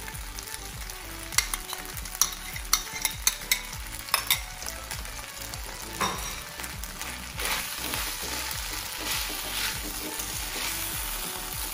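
Chicken chow mein noodles sizzling in a wok while a silicone spatula stirs them. A run of sharp knocks comes between about one and four seconds in, and the stirring grows louder from about seven seconds in as the noodles and sauce are tossed together.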